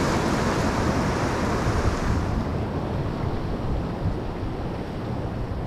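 Ocean surf washing against the rocks of a jetty, with wind buffeting the microphone; the higher hiss eases about two seconds in.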